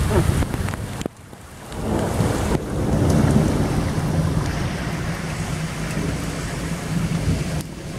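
Thunder during a thunderstorm: after a brief lull about a second in, a low rumble builds and rolls on steadily, mixed with wind buffeting the microphone.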